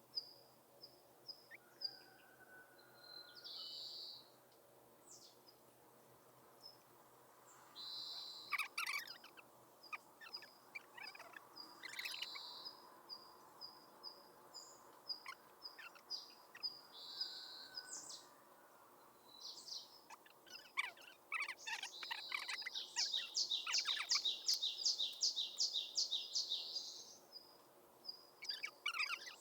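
Morning birdsong from small songbirds such as tits and sparrows: short high calls and repeated notes on and off, with a fast, even series of repeated notes a little after the middle. A faint steady background hum lies beneath.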